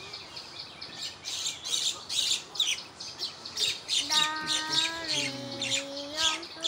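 A flock of common mynas and other birds chattering, a dense run of short squawks and chirps one after another. About four seconds in, a person's voice holds a long, slightly falling note for about two seconds.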